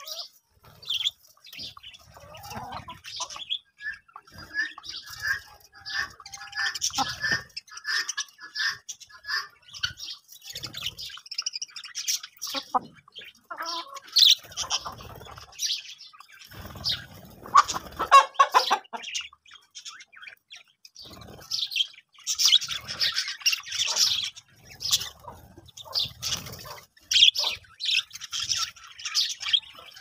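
A flock of budgerigars chattering and chirping, many short high calls overlapping. About halfway through comes a louder, lower bird call.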